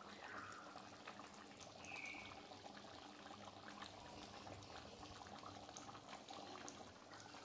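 Faint bubbling and popping of a mutton and potato curry simmering in its pan on low heat.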